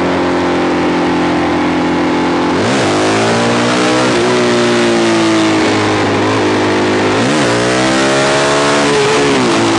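Suzuki DRZ400SM single-cylinder engine on the move, twice given a quick clutch pull and release to pop the front wheel up: each time the revs dip and snap back, then climb steadily before dropping off. Wind noise rises as the bike speeds up.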